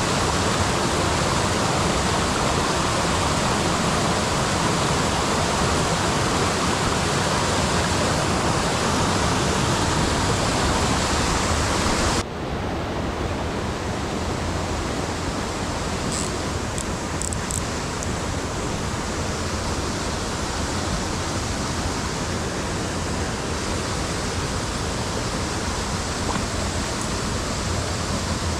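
Rushing water of a mountain stream, a steady hiss. About twelve seconds in it cuts abruptly to a softer, duller rush of water.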